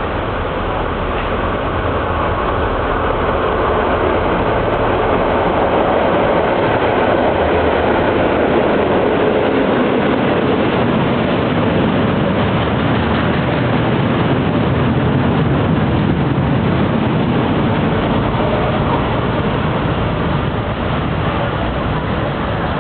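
Freight train hauled by an EMD G16 diesel locomotive passing through a station without stopping, making a continuous rumble of engine and rolling wagons. It is a little louder through the middle.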